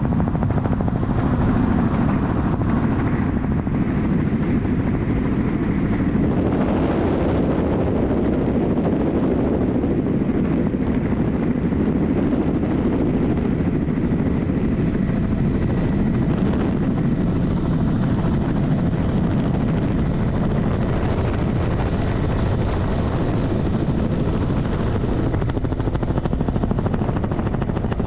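Helicopter in flight: steady, loud rotor and engine noise, with no change in pitch or level.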